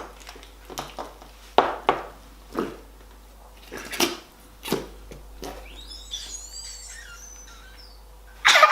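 Toilet putty slime squelching in a series of short sharp squishes as it is pressed and stretched, then a dog barking loudly near the end.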